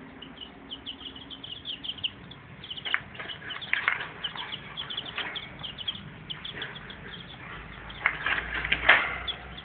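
Wire cage rattling and clinking as a hand reaches in among white rats, in irregular knocks that get busier and louder near the end. A steady stream of short high-pitched chirps runs underneath.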